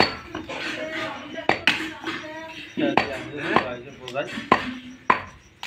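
Large cleaver-style knives chopping beef on wooden stump blocks: irregular sharp knocks, roughly one a second, with voices talking in the background.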